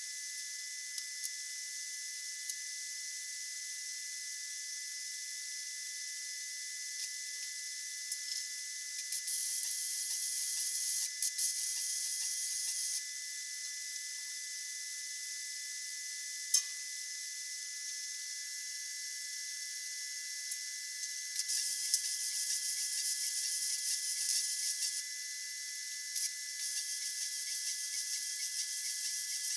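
Hobart Handler 190 MIG welder welding the smoker's steel frame: three bursts of arc noise, about four, three and a half and three seconds long, each starting and stopping abruptly, over a steady hiss. A single sharp tap comes between the first and second bursts.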